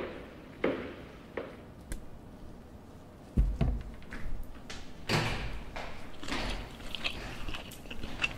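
Footsteps on a hard floor, a step about every 0.7 seconds, then a door banging shut about three and a half seconds in, followed by a few seconds of rustling noise.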